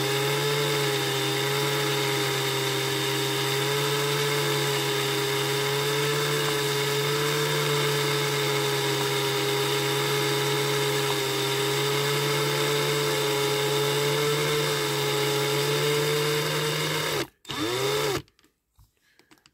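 Cordless drill running steadily at one speed, spinning a toy car's wire axle in its chuck while sandpaper is held against it to smooth it. The drill spins up at the start, runs for about seventeen seconds, stops suddenly, then gives one brief extra burst.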